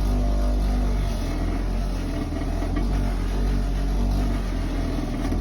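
Carbotech bench grinder fitted with buffing wheels running: a steady motor hum at constant speed.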